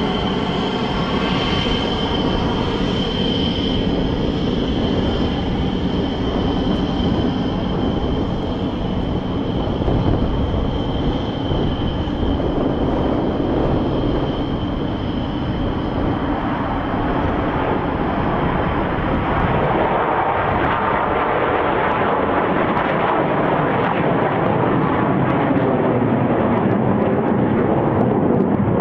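Su-27 fighter jet's twin turbofan engines running loud, a steady rumble with a high turbine whine that is strongest in the first half and fades as the rumble grows fuller toward the end.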